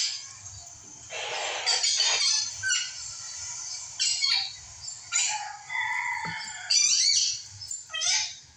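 Birds chirping and squawking: a string of short, high calls, some sliding in pitch, over a faint low hum.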